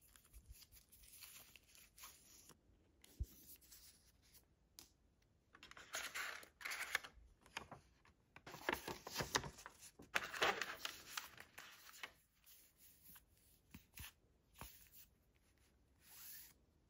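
Plastic screen-protector kit and its packaging being handled: a rigid plastic installation tray and frame tapped, slid and set down on a tabletop, with crinkling of wrapping and light clicks. The rustling is louder around six seconds in and again from about nine to eleven seconds.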